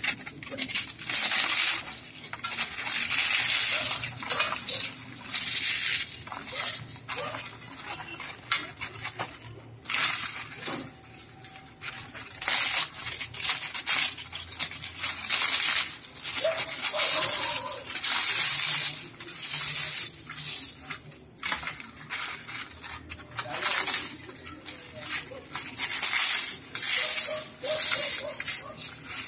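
Crisp deep-fried papdi puris being crushed and broken by hand over a steel plate: crackling crunches in irregular bursts every second or two, with pieces clinking onto the plate.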